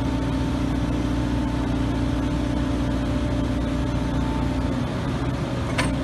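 Backhoe loader's diesel engine running steadily under load, its drone easing off shortly before the end. Right at the end, bricks and dirt start clattering into the steel bed of a dump truck as the bucket empties.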